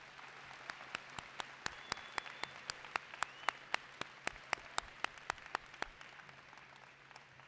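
Audience applauding in a large gymnasium, one set of claps close and sharp at about four a second over the crowd's steady clapping, which dies away near the end.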